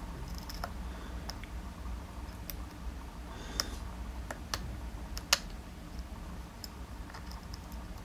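Light, irregular metallic clicks and ticks of a dimple flag pick working the pins inside a DOM iX dimple lock cylinder, the sharpest click a little after five seconds in.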